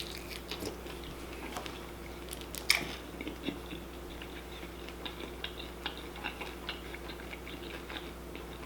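Close-miked chewing and mouth noises of a person eating, a run of small wet clicks with one louder click nearly three seconds in, over a faint steady hum.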